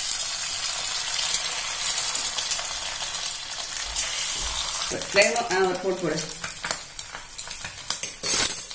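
An egg sizzling and crackling in hot oil in a nonstick frying pan, starting sharply as the egg hits the oil. It grows quieter after about five seconds and flares loud briefly near the end.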